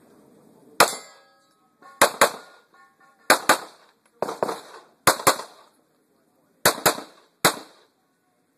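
CZ75 pistol firing about a dozen shots: a single shot, then mostly quick pairs about a fifth of a second apart, with a second or more between pairs.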